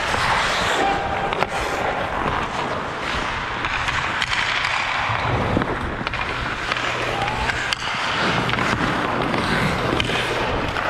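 Hockey skates scraping and carving across rink ice, with occasional sharp clacks of sticks and puck on the ice.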